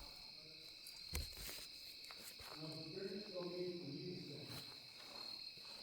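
Chorus of insects, a steady high-pitched drone, with a faint low voice-like murmur around the middle and a few soft clicks.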